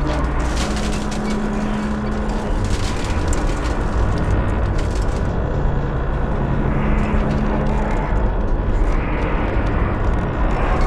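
Tower crane's steel structure creaking and grinding, metal on metal, over a steady low hum.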